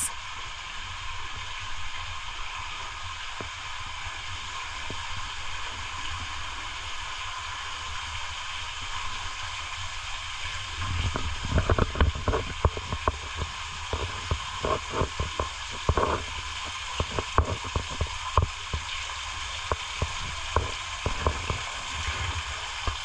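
Steady splashing hiss of water falling from the cave ceiling into a pool. From about eleven seconds in, irregular low thuds and rumbles come in over it.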